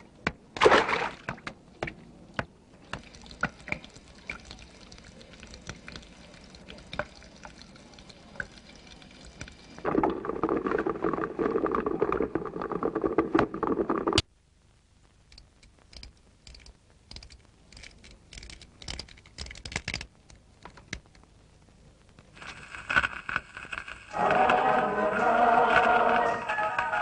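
Sparse knocks and clicks, then water running for about four seconds that cuts off abruptly, and more scattered small knocks. Music starts about three seconds before the end.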